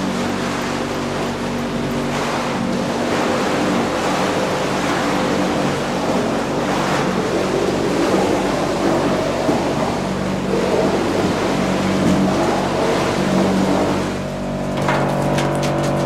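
Wood-chip handling machinery running: a steady mechanical hum with several held tones under a rushing noise of chips pouring through a chute onto a belt conveyor. About 14 seconds in the sound changes suddenly to a different set of steady hum tones.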